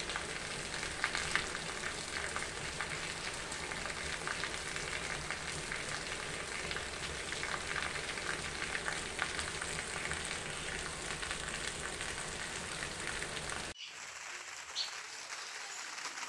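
Steady heavy rain, a dense crackling hiss, with water pouring off a tiled roof edge onto a concrete yard. About 14 seconds in it cuts off abruptly to a quieter, lighter rain with a few faint drips.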